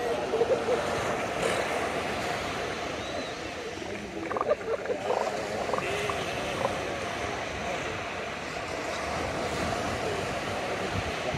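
Steady wash of small surf breaking on a sand beach, with wind on the microphone, and a few faint short sounds about four to six seconds in.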